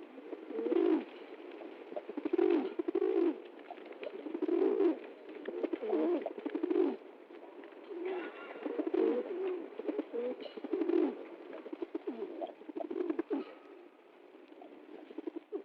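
Pigeon cooing over and over, low rolling coos about once a second.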